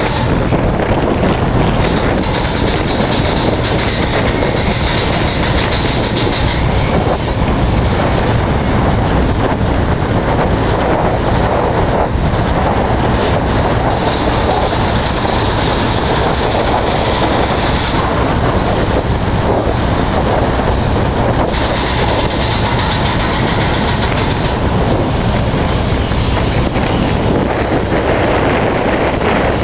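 Strong wind blowing on the microphone, a steady loud rushing with a low, even drone underneath.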